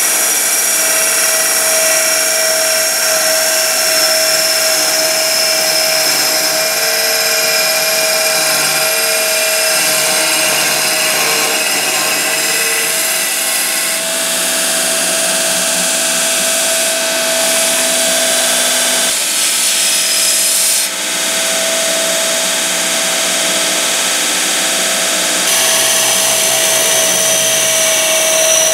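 Abrasive belt pipe notcher grinding a steel pipe: a steady motor whine with a hissing grind of metal on the abrasive belt. The sound changes abruptly about halfway through and a few times after.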